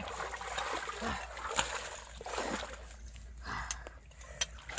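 Canal water splashing and sloshing as a person wades waist-deep and lifts a caught fish out of the water, with a few brief faint voice sounds.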